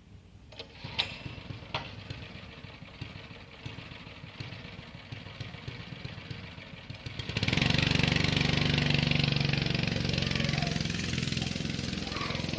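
Go-kart's small engine running, fairly quiet at first with a couple of sharp clicks, then suddenly much louder about seven seconds in as the kart's engine comes up to speed.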